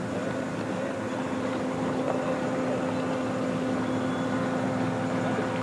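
Pontoon boat's outboard motor running at speed on the lake, a steady drone.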